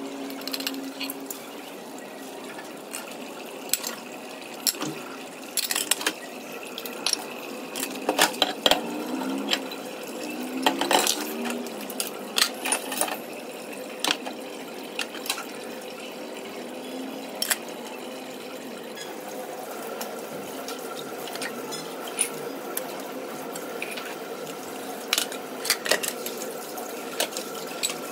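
Kitchen clatter: utensils clinking and knocking against pots and dishes over a running-water wash. A steady hum starts about two-thirds of the way in.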